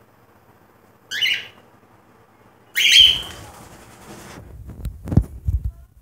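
Cockatiel calling twice: a short rising chirp about a second in, then a louder, harsher screech just before three seconds. Low knocks and rustling follow near the end.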